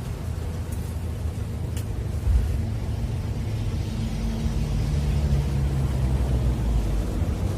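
Motor vehicle traffic crossing the bridge: a steady low rumble, with an engine growing gradually louder in the second half. There is a single thump a little over two seconds in.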